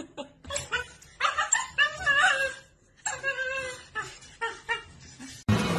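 A dog whining in high, wavering whimpers in two stretches, with clattering knocks as it scrambles against a wire cage. Music cuts in abruptly near the end.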